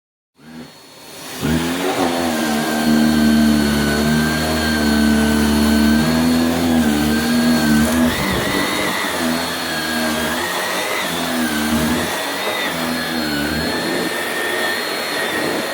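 Shark NV680UKT upright vacuum cleaner switched on, spinning up over the first second or so, then running steadily with a motor whine that wavers slightly in pitch.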